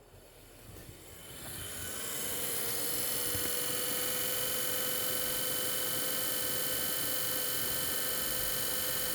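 Graphics card cooling fans spinning up from rest over about two seconds to a steady whir with a hum and high whine. One of the fans has a failed bearing and is making too much racket.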